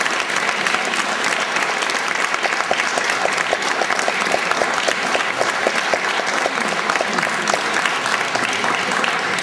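Theatre audience applauding, a steady sustained clapping of many hands in a large hall.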